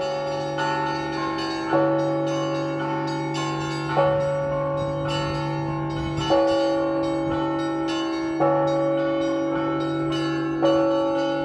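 Russian Orthodox church bells being rung by hand. A low bell hums steadily underneath, a heavier stroke lands about every two seconds, and smaller bells are struck in a quick pattern between the strokes.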